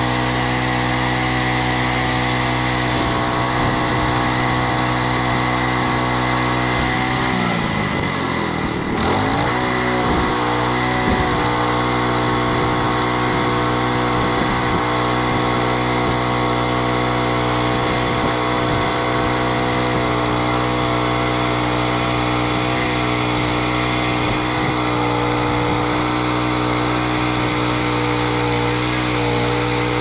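Petrol engine of a portable bandsaw mill running hard while its band blade cuts through a green ironbark log. The engine note dips about eight seconds in, then picks back up and holds steady.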